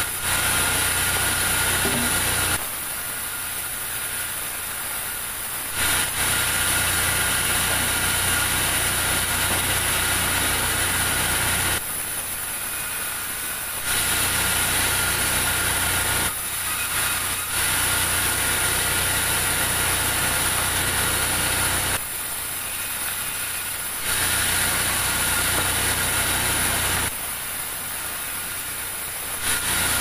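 Large vertical band saw running steadily with a constant hum and whine, getting much louder and noisier about five times for a few seconds each as the timber is pushed through the blade, then dropping back to its idle running between cuts.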